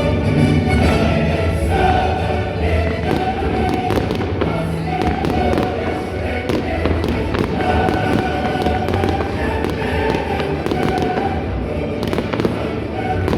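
Fireworks bursting and crackling, with many sharp cracks coming thicker from a few seconds in, over loud music with a choir.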